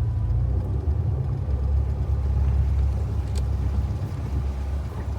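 Boat engine running in gear at low speed, around 1,200 RPM, with a steady low rumble.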